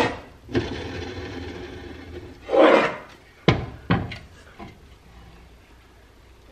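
A painted sheet-metal toy truck being handled on a tabletop: a couple of seconds of noisy rubbing, a louder scrape, then two sharp knocks as metal parts are set down.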